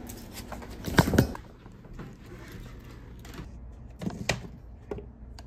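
Handling noises: a pair of sharp knocks about a second in and two more near the end, as a hardboard clipboard is set against a framed board, with soft rustling between.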